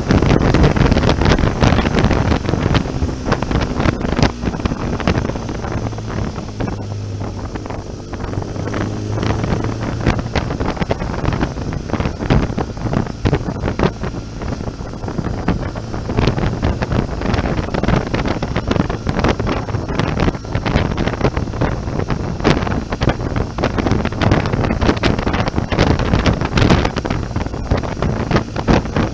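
Wind rushing over the camera microphone of a BMW R1200GS motorcycle under way, with constant buffeting thumps. Beneath it runs the bike's flat-twin boxer engine, steady and low, shifting in pitch around a quarter of the way in.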